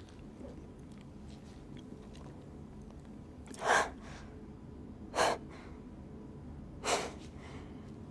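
A person taking three short, sharp, noisy breaths, each about a second and a half apart.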